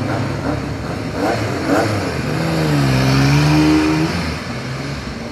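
Racing sidecar outfit's engine running and revving, its note dipping in pitch and rising again midway, then growing quieter near the end.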